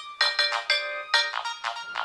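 A Nokia 3220 ringtone played on a Nokia N73 phone: a quick melody of synthesized notes, about three or four a second, each struck sharply and fading away.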